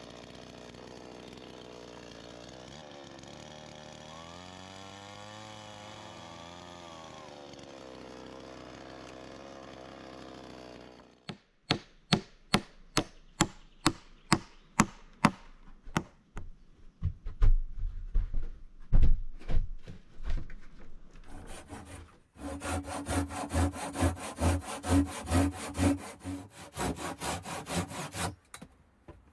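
Two-stroke chainsaw running, its pitch rising and falling once midway, then it stops. Sharp hatchet blows on wood follow, about two a second, then a few heavier thumps. Near the end a handsaw cuts through a plank in rapid strokes.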